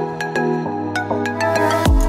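Electronic background music: held synth chords over a steady beat of sharp hits, with a deep falling bass hit near the end.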